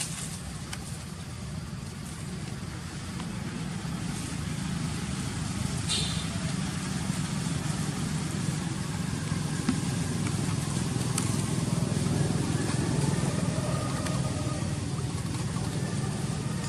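Steady low engine rumble of a motor vehicle, growing louder over several seconds and easing off near the end.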